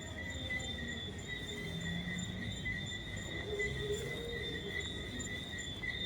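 A night chorus of crickets trilling steadily at several overlapping pitches, one higher voice pulsing rapidly on and off.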